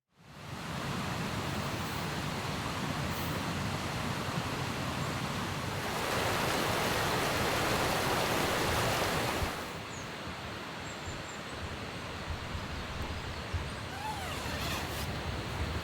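Steady rushing noise, louder for a few seconds in the middle and then duller and quieter from about ten seconds in.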